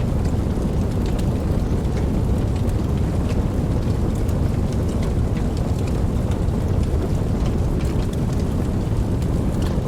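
Steady rain: a continuous deep rumbling wash with many scattered sharp drop ticks through it.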